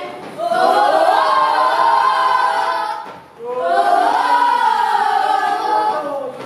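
A group of voices singing together without instruments: two long sung phrases with a short break about three seconds in.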